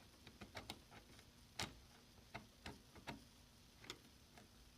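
Faint clicks of a briefcase's roller combination wheel being thumbed through its numbered detents, about ten irregular clicks with the sharpest about one and a half seconds in, as the wheel is felt for its flat spot.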